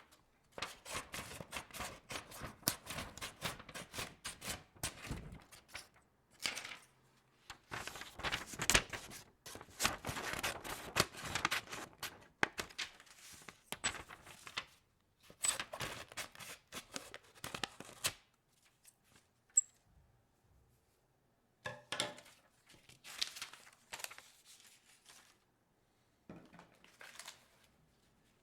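Sheets of standard white printer paper being torn and crinkled by hand in bursts of dense crackling, with short pauses between them and the longest pause of about three seconds beginning some eighteen seconds in.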